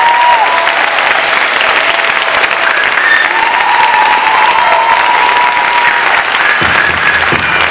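Theatre audience applauding steadily and loudly, with a few drawn-out cheering calls over the clapping.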